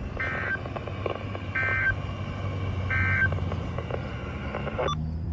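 Three short electronic beeps, evenly spaced about a second and a half apart, over a steady low rumble.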